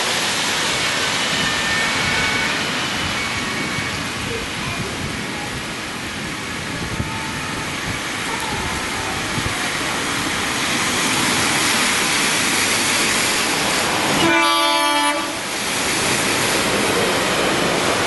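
Tyres of passing emergency vehicles hissing on a rain-soaked road, under a steady wash of rain and traffic noise. About fourteen seconds in, a horn sounds once for about a second.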